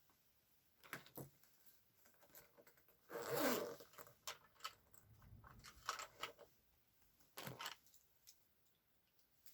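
Scattered small clicks and rustles of objects being handled, with one longer zipping rasp a little over three seconds in, like a zipper being pulled.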